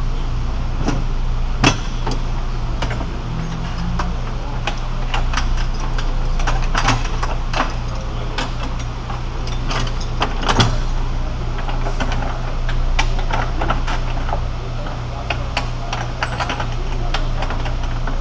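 Wooden panels of a tobacco baling box being handled and fitted together, giving scattered knocks and clacks. The loudest come about one and a half seconds in and about ten and a half seconds in. A steady low hum runs underneath.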